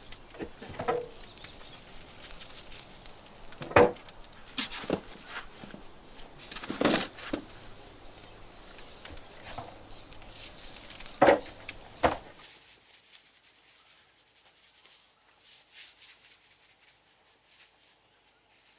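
Clanks and knocks of a metal bin's lid and long tongs during a smoky pottery firing: four or five sharp strikes over scraping and rustling. About two-thirds through, the sound drops to faint room tone.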